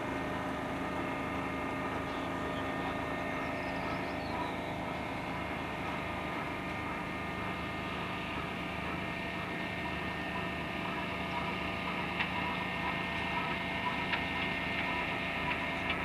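Steady machinery drone with several held tones, as of a running engine, unchanging while the wrecked locomotive hangs from the rail crane; a few light clicks in the last few seconds.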